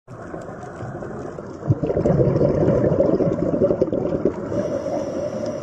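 Underwater ambience: low rumbling and gurgling water noise that swells with a thump about two seconds in, then slowly eases, with a few faint clicks.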